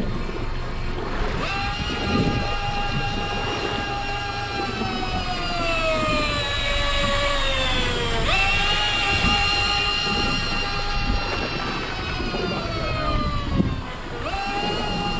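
Electric deep-drop fishing reel's motor whining as it winds in line, starting about a second and a half in. Its pitch sags under load, jumps back up about eight seconds in, and cuts out briefly near the end before starting again, over a steady low rumble and wind noise.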